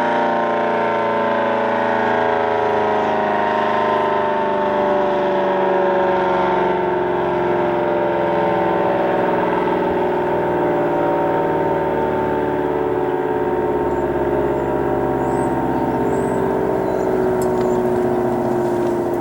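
ACA Allertor 125 rotating warning siren sounding loud and steady, its pitch falling slowly and evenly as it winds down.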